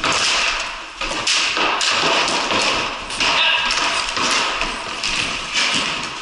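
Ball hockey play: sticks clacking on a concrete floor and against a plastic ball, with the ball knocking off sticks and plywood boards. A string of sharp, echoing knocks, about two a second.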